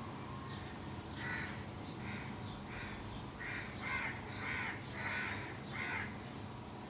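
A bird giving a series of about eight harsh, hoarse calls, bunched more closely from about three and a half seconds in. Faint short chirps sound in the background.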